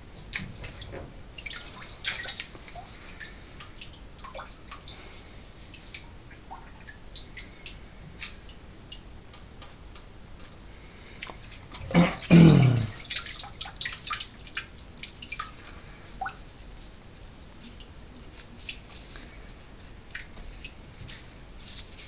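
Wet cod fish maw handled with plastic-gloved hands in a washing-machine drum: scattered small wet squelches, drips and crinkles. About twelve seconds in comes one brief, louder sound that drops in pitch.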